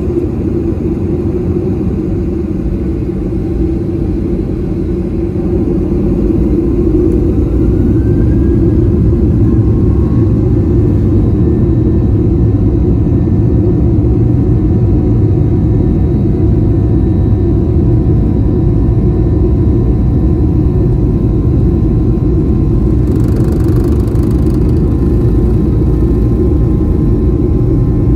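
Boeing 737-800's CFM56-7B turbofan engines heard from the cabin over the wing, spooling up to takeoff thrust about six seconds in with a rising whine. After that comes a steady, loud engine rumble as the takeoff roll gets under way.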